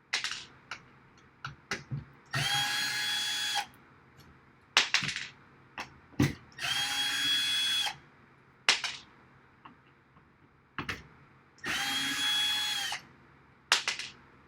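Power drill drilling holes in a rack case's outer rail in three short bursts of a little over a second each, the motor whine spinning up and winding down each time, with sharp clicks and knocks of handling in between.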